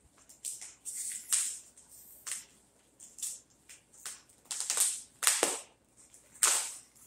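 Packaging being handled and unwrapped by hand: a run of irregular crinkles and rustles, with a sharper knock about five seconds in.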